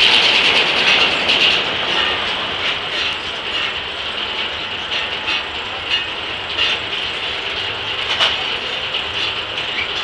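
Gaar Scott circular sawmill: the blade finishes a cut through Chinese elm about a second in, then spins free while the carriage's gears and ratchet work clatter with scattered sharp clicks.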